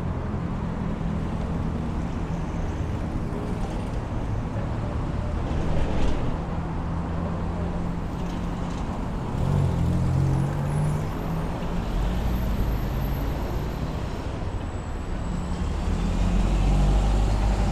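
Road traffic on a busy city street: car and bus engines running past under a steady bed of street noise, swelling louder about ten seconds in and again near the end.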